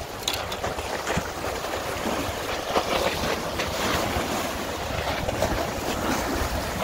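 Choppy bay water splashing and lapping in strong wind, with wind buffeting the microphone.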